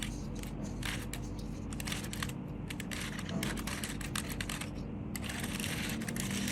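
Plastic Rubik's cube being turned by hand: quick, irregular clicking and clacking of the layers rotating.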